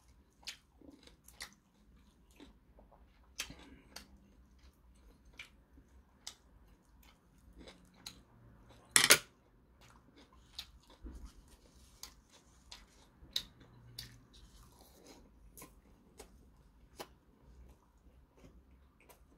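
Close-up mouth sounds of chewing a mouthful of rice and pork belly wrapped in seaweed, with scattered small clicks of metal chopsticks and dishes. One sharp, much louder noise about nine seconds in.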